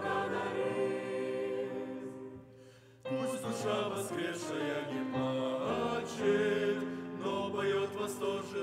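Mixed choir singing a Russian hymn. A phrase fades out about two seconds in, there is a brief near-silent pause, and the choir comes back in with a new verse about three seconds in.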